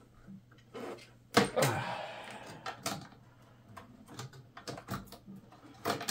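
Scattered clicks and knocks of hands working inside a desktop PC case, unlatching and pulling a DDR2 memory stick from its motherboard slot. The sharpest knock comes about a second and a half in, with a few more near the end.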